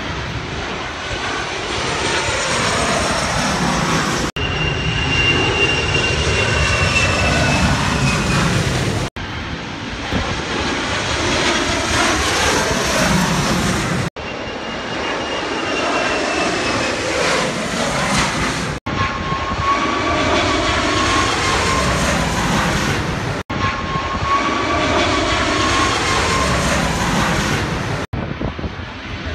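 Jet airliner on final approach passing low overhead: loud engine noise with whining tones that rise and fall, broken by brief dropouts about every five seconds.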